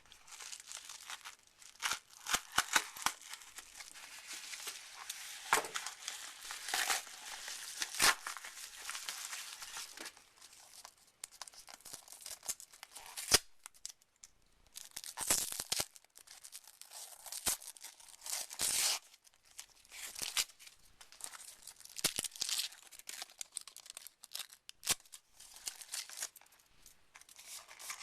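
Packaging being torn open and crumpled by hand: irregular crinkling and tearing bursts with scattered sharp clicks and short pauses.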